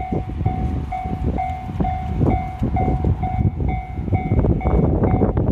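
Level-crossing warning bell ringing in even pulses about twice a second, over the rumble and clacking of a two-car train running through the crossing. The bell stops near the end.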